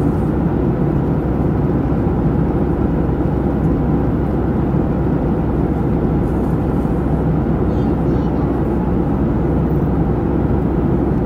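Steady cabin noise of a Boeing 737 airliner in cruise: an even, low rushing of jet engines and airflow.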